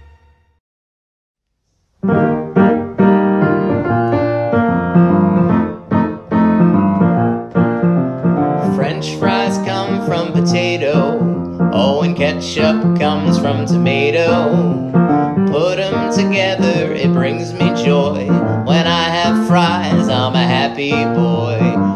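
Brief silence, then a song starts about two seconds in: piano chords with a steady beat, joined partway through by a higher lead melody that bends in pitch.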